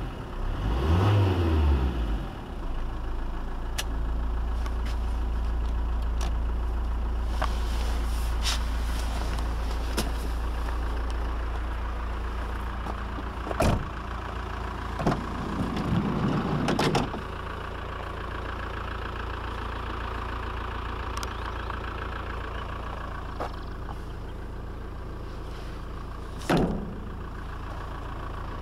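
Fiat Doblo 1.9 JTD Multijet four-cylinder turbodiesel blipped briefly about a second in, then idling steadily. Over the idle come a few sharp clicks and clunks of the van's door handle and doors being worked, with one louder thump near the end.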